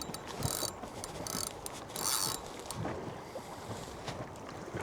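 Spinning reel being wound in with a hooked fish on the line, a run of short hissing whirrs through the first half, then quieter.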